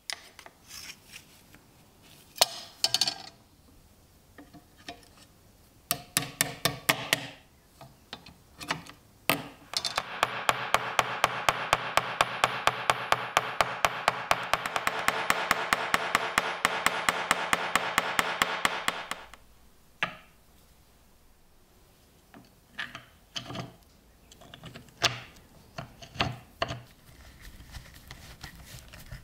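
A small hammer tapping brass rivet pins through a wooden knife handle on an anvil to peen them over: rapid, even taps for about nine seconds in the middle. Before and after come scattered clicks and knocks of small metal parts being handled and a screwdriver working a screw into wood.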